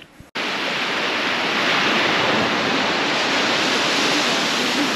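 Surf breaking and washing up a sandy beach: a steady hiss of waves that cuts in abruptly about a third of a second in.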